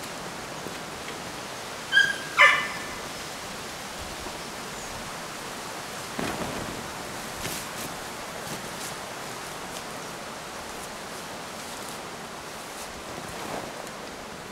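A dog gives two short, high-pitched barks about half a second apart, over a steady background hiss.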